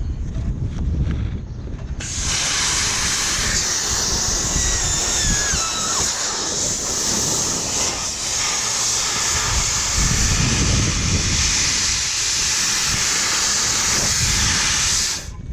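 Compressed air hissing steadily from a blow nozzle as dust is blown out of a UPS unit. It starts about two seconds in and cuts off suddenly just before the end, with a faint falling whistle partway through.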